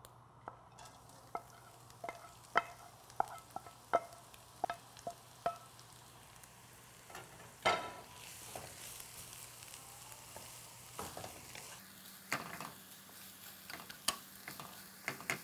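Julienned carrots stir-frying in oil in a wok, a wooden spatula knocking and scraping against the pan in irregular taps, with a sizzle that grows stronger about halfway through.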